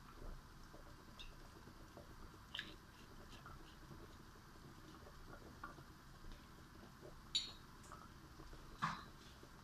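Mostly quiet, with a few faint clicks and taps and two sharper knocks about seven and nine seconds in, as the olive oil bottle is set back among the jars on the rack.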